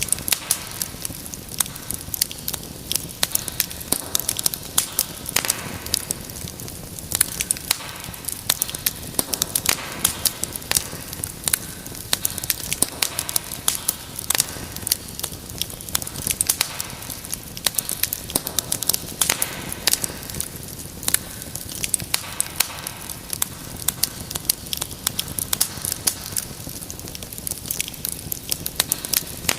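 Wood fire burning in a fireplace, with constant irregular crackles and pops over a steady hiss of flame.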